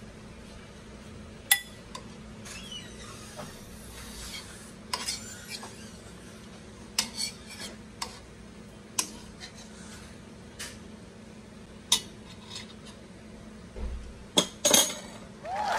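A metal ladle clinking and scraping against a metal pan and a ceramic bowl as stew is served out, with scattered sharp clinks a second or two apart and a small cluster near the end.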